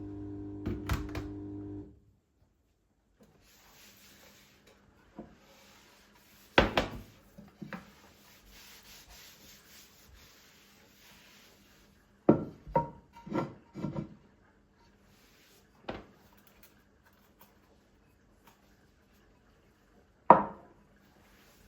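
A steady hum with several tones that cuts off about two seconds in. Then scattered knocks and clicks of household objects being handled and set down, with a soft rubbing hiss in between, a quick run of four knocks, and a sharp knock near the end.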